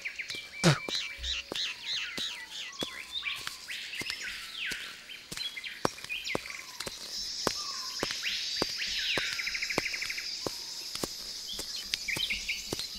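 Birds calling: repeated looping, swooping whistles and a fast trill. A steady high buzz joins about seven seconds in. Faint light clicks recur about twice a second underneath.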